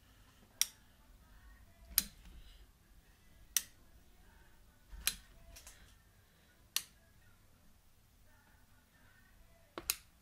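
Manual caulking gun clicking sharply as its trigger is squeezed again and again, about once every second and a half, while it pushes out a bead of window adhesive; two clicks come close together near the end.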